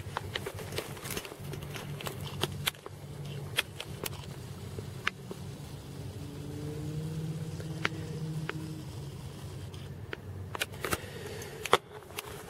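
Scattered clicks and light rubbing from a hand-held camera being handled, over a low steady background hum that swells faintly for a few seconds in the middle. The sharpest click comes near the end, as a hand closes over the camera.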